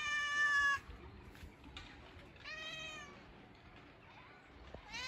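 Domestic cat meowing three times: the loudest first, one about two and a half seconds in, and another starting near the end.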